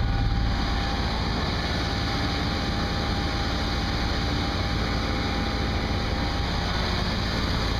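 Car engine idling steadily, with a faint steady whine over a low rumble.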